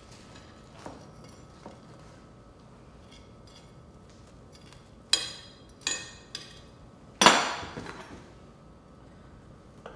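Metal serving utensils clinking against plates and serving dishes: a couple of light taps, then three sharp ringing clinks just past halfway and a louder clank with a longer ring soon after.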